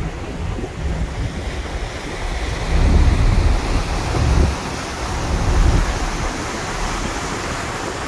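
Rushing sea and a ship's churning wake under steady wind, with the wind buffeting the microphone in heavier low gusts around the middle.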